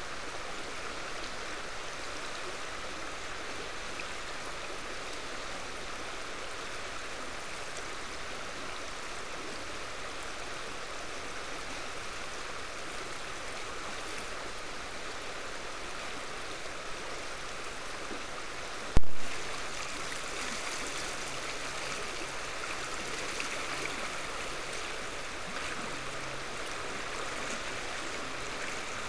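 A stream of flowing water rushing steadily. There is a single sharp click about two-thirds of the way through.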